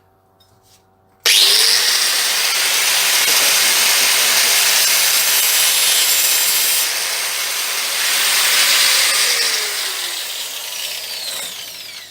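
Angle grinder switched on about a second in, spinning up and cutting through the stranded inner core of a clutch cable with a steady loud grinding. Near the end it is switched off and winds down with a falling whine.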